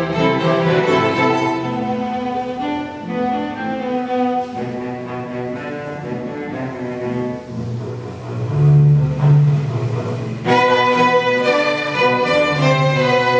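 A bowed string ensemble of violins, violas and cello playing a contemporary piece. Midway the front violins rest while the lower strings carry the line with strong low cello notes, and about ten seconds in the whole ensemble comes in together on a loud, sustained chord.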